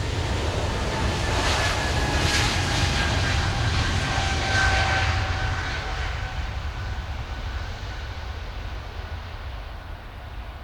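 Jet airliner's engines during a takeoff pass: a loud rumble with a whine that drifts slightly down in pitch, fading away after about five seconds as the aircraft climbs out.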